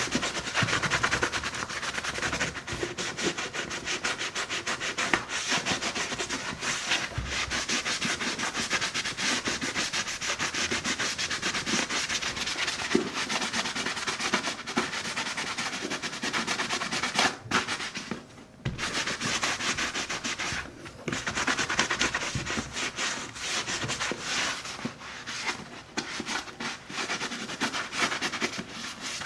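A buffing glove rubbing quickly back and forth over the leather of a Red Wing 8080 boot to raise a shine after shoe cream, making a dense, fast swishing. The strokes stop briefly a little past halfway, then carry on.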